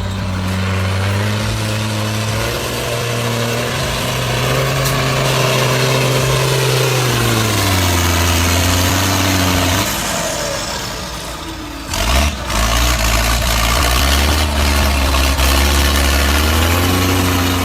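Heavy vehicle engine running and being revved, its pitch sinking and rising again, with a short clatter about twelve seconds in.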